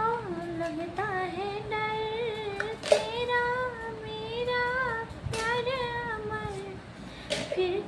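A high female voice singing solo and unaccompanied, holding long wavering notes with ornamented bends, with short breaths between phrases.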